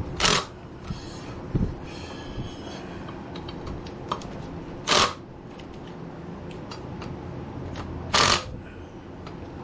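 Three short, harsh bursts, each about a quarter second long, near the start, about five seconds in and about eight seconds in, from a tool working the scooter's front brake-rotor bolts. A steady low hum runs underneath.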